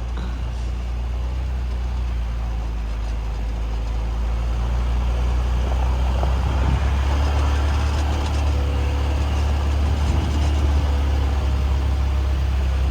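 Lada car running while driving: a steady low engine and road drone that grows a little louder about halfway through.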